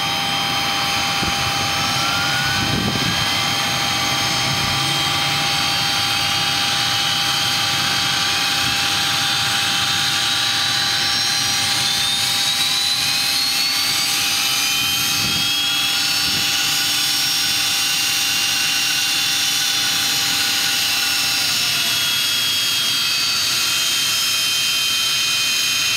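Learjet 45's turbofan engines starting: a steady high turbine whine, with several tones rising slowly from about halfway through as an engine spools up.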